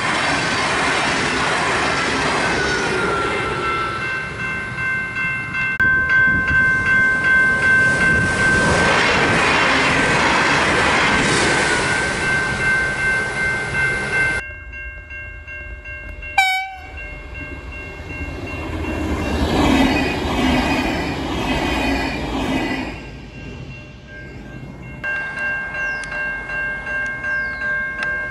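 A three-car VLocity diesel railcar passes a level crossing with the crossing bells ringing in a steady pulsing rhythm. After a cut, another VLocity runs past along the open track, with a short loud burst midway. Near the end, crossing bells ring again as a third VLocity approaches.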